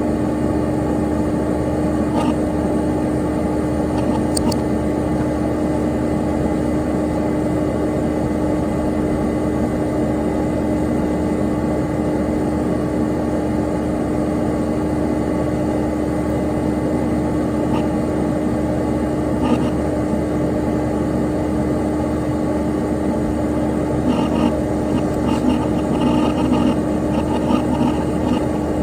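Dell Dimension XPS P100c desktop PC running: the steady whir of its cooling fan and spinning hard drive, with a constant hum. A few faint ticks come in near the end.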